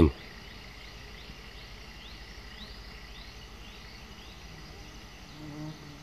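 Quiet pine-forest ambience with a faint series of high, arching chirps, about two a second, over a steady background hiss; a faint low sound comes near the end.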